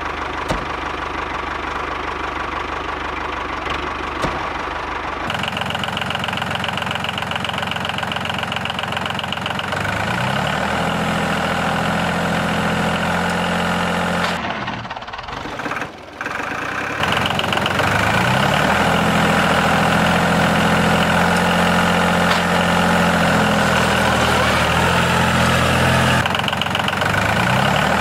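Small motor running, climbing in speed about ten seconds in, cutting out briefly around fifteen seconds in, then starting again and running steadily.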